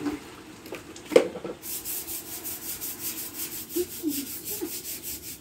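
Hand scrubbing on a stone ledge: quick, even strokes about five a second, beginning about a second and a half in. A single knock comes about a second in.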